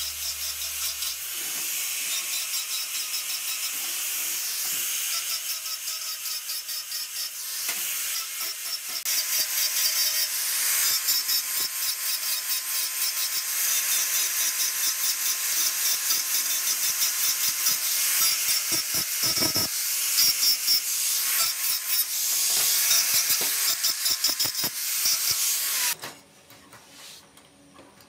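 Angle grinder with an abrasive disc grinding the steel frame and handle of an old hacksaw: a steady hissing grind over the motor's whine. It stops abruptly near the end.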